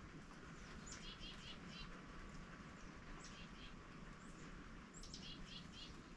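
Faint bird song: a short phrase of a high, downward-sliding note followed by two or three quick chirps, repeated three times, about every two seconds.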